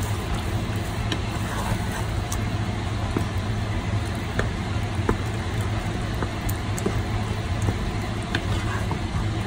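Wooden spoon stirring black beans and chopped vegetables in a saucepan, with a few light clicks, over a steady low hum and hiss.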